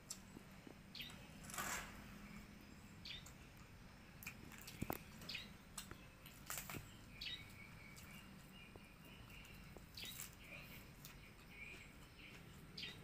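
Quiet eating sounds: scattered mouth clicks and a few short crunches from chewing a raw red chili and leaves of raw napa cabbage. Faint bird chirps sound in the background.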